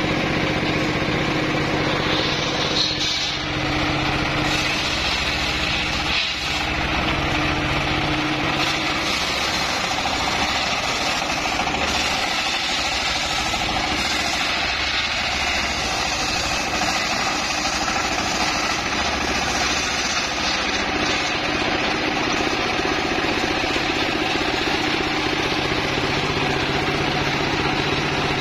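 Homemade circular saw bench (mesin serkel rakitan) running steadily as a teak log is pushed along its table: a constant mechanical drone with a steady low hum.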